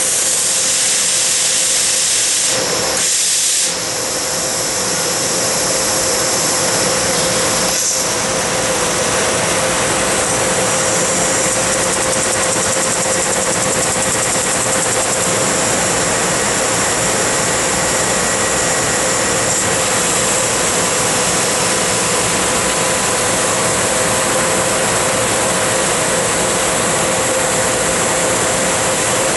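Tanaka 6 kW laser cutting machine running over 1-inch mild steel plate: a steady, loud hiss with a constant hum of steady tones underneath, dipping briefly about three seconds in.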